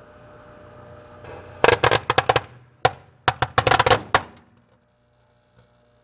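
Firecrackers going off in rapid strings inside a running microwave oven: two quick bursts of sharp cracks, the first about a second and a half in and the second about three seconds in, over the oven's steady hum.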